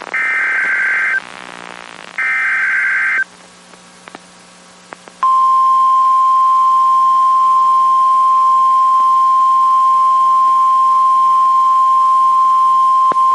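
Two warbling data bursts of an Emergency Alert System SAME header, each about a second long with a short gap between them. After a pause of about two seconds, the steady single-pitch 1050 Hz NOAA Weather Radio warning alarm tone sounds for about nine seconds. It signals that a warning message, here a tornado warning, is about to be read.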